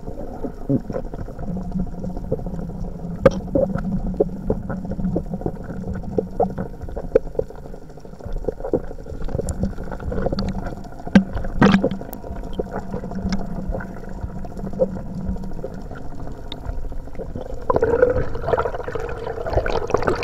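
Muffled underwater sound picked up by a camera below the surface: steady low water noise with scattered clicks and knocks, one sharp knock a little past halfway. The water noise grows louder and churning near the end.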